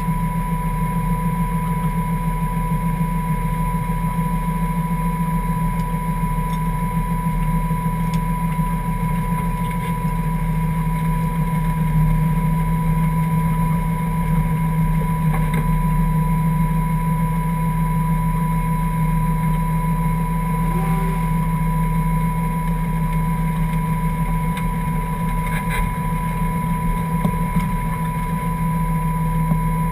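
Toyota 1JZ 2.5-litre straight-six in a Ford Escort idling steadily, heard from inside the car, with a thin steady high tone over the engine hum.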